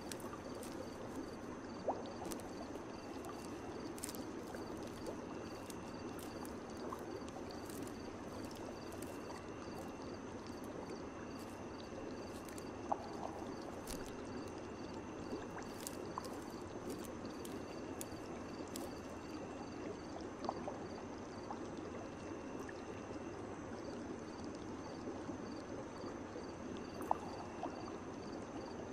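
Night-time ambience of steadily running, gurgling water, with insects chirping in a regular high pulse and scattered sharp clicks like water drips.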